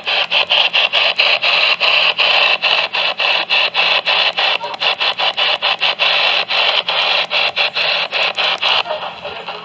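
Loud radio static: a steady hiss that is chopped by rapid, regular dropouts several times a second, over a low hum. The hiss thins out near the end.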